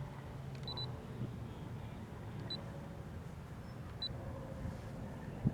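Electric RC helicopter motor and electronic speed controller misbehaving: a low hum that cuts out about a second in over a steady low rattle, with three short high beeps spaced one to two seconds apart. The owner takes this for a bad motor and speed controller.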